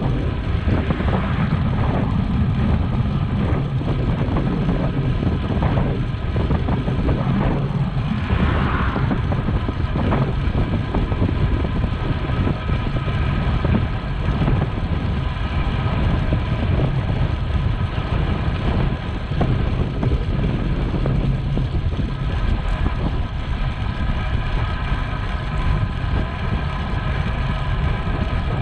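Wind rumbling steadily over the microphone of a camera on a moving bicycle.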